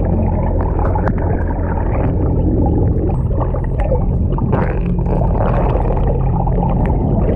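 Muffled rush of water over a submerged action camera, with the steady low hum of the Yamaha WaveRunner's engine carried through the water and scattered short clicks. A brief faint high whistle about three seconds in comes from the common dolphins swimming alongside.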